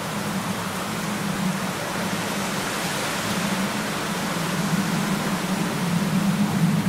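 Steady urban background noise: an even hiss over a constant low hum, the sound of distant road traffic.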